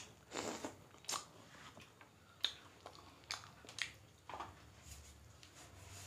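Faint eating sounds of biting and chewing meat off a chicken drumstick in curry: short, irregular wet smacks and clicks.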